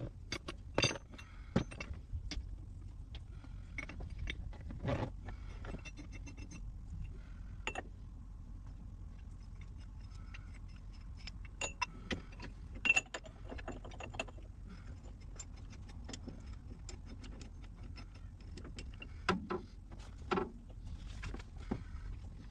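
Scattered metal clinks, knocks and rattles of a C-frame ball joint press and its adapters being handled and fitted onto a steering knuckle, the loudest knock about thirteen seconds in, over a low steady hum.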